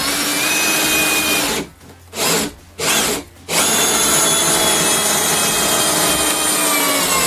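Ryobi RPD18C 18V brushless combi drill in low gear with a nut driver, driving a large coach screw into wood. It runs for a second and a half and stops, gives two short blips, then runs long and steady, the motor slowing a little near the end.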